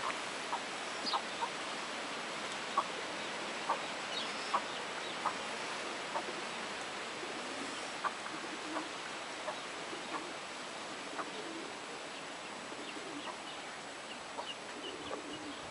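Chickens clucking in the background over a steady outdoor hiss, with scattered short ticks.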